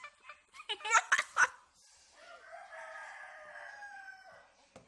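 Pet chickens calling: a few loud, sharp squawks about a second in, then one long, crow-like call of about two seconds that tails off downward.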